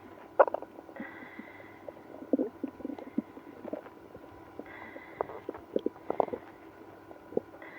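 A human stomach and bowels growling and gurgling in irregular bubbling pops and squelches, loudest about half a second in and again around five to six seconds in. This is an upset gut with IBS after drinking milk and prune juice.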